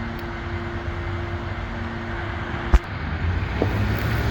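Steady outdoor background with a running vehicle engine, its steady hum stopping partway through, and one sharp click just under three seconds in.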